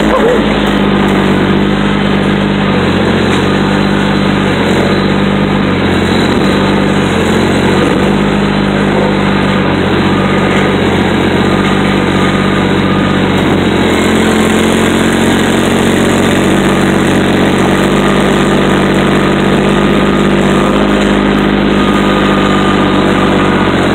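A grapple truck's diesel engine running steadily close by, beside its exhaust stack, while the truck's grapple crane works.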